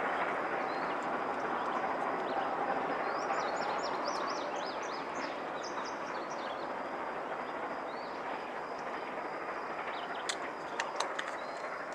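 Rumble of a receding train fading slowly into the distance, with a bird chirping in quick falling notes a few seconds in and a few sharp clicks near the end.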